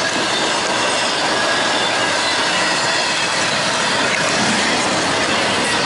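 Intermodal freight train cars rolling past at speed: a loud, steady noise of steel wheels on rail, with faint high squealing from the wheels.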